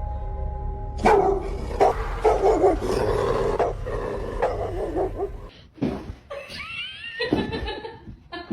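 A small dog barking and yipping repeatedly, with a low rumble under the first five seconds or so.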